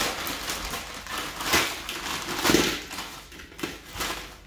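Plastic bag of broccoli florets crinkling as it is handled and tipped, with the florets rustling and crunching into a plastic colander set in a steel pot. The loudest crunches come about one and a half and two and a half seconds in.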